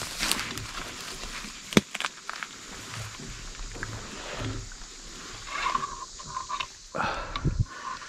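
Footsteps crunching through dry leaf litter and brush, with a sharp twig-like snap about two seconds in, and a few short high calls and more rustling near the end.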